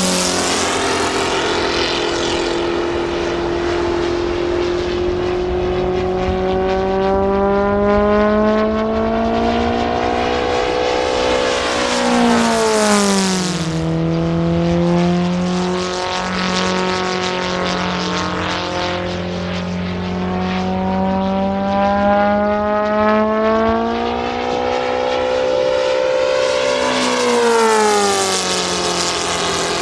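Kolm 310 cc four-cylinder inline four-stroke model aircraft engine running at high power in flight. Its pitch falls sharply each time the plane sweeps past: once at the start, once about halfway through and once near the end. In between, the pitch holds fairly steady.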